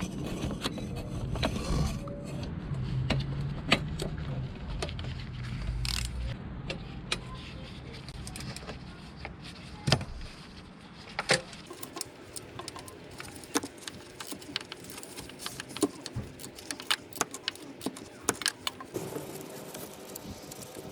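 Scattered sharp metallic clicks and clinks of hand tools on bolts and engine parts. A low rumble runs underneath for the first several seconds, then fades.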